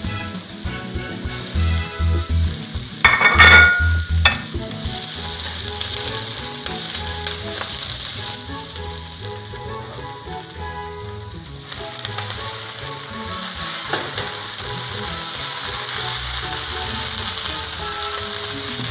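Scallions, onion and bean sprouts sizzling in a hot oiled wok while being stir-fried with a spatula. There is a loud burst of sizzling about three seconds in as the bean sprouts go into the oil, then steady sizzling with the spatula stirring.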